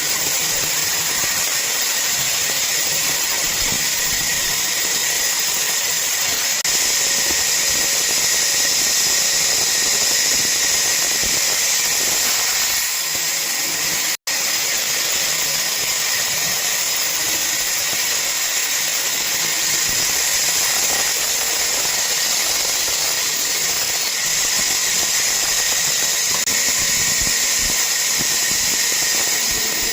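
Woodworking power machine running steadily, a high-pitched whine over a hiss. It drops out for an instant about halfway through.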